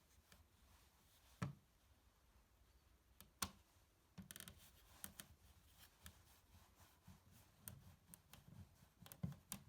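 Faint clicks and scrapes of a screwdriver working a tiny screw into an electrical outlet: two sharper clicks in the first few seconds, then a run of light ticking and scraping as the screw is turned.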